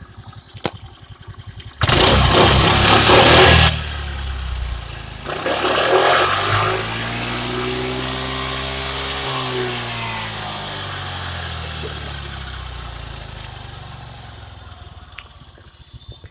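Suzuki Access 125 scooter's 124 cc single-cylinder engine and exhaust. There are two loud rushing bursts, then the engine note climbs and drops back again as it fades away.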